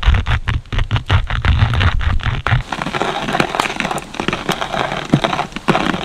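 Hand-cranked coffee grinder crushing whole coffee beans, a dense crackling crunch of many quick clicks. About two and a half seconds in, the deep rumble drops away and a lighter, brighter crackle goes on.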